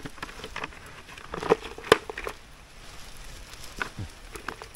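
Digging and handling wet soil: irregular crunches and knocks, the sharpest about one and a half and two seconds in.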